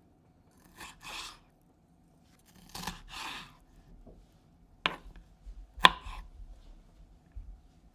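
Peppers being chopped with a knife: two pairs of crisp slicing strokes through the pepper, then two sharp knocks of the blade on the cutting board about a second apart, the second the loudest.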